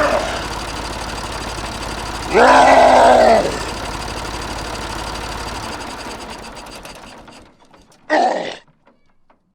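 Small electric motor of a DIY mini tractor running steadily, then dying away about six to seven seconds in. A short, loud, voice-like groan sounds about two and a half seconds in, and a brief burst of sound comes near the end.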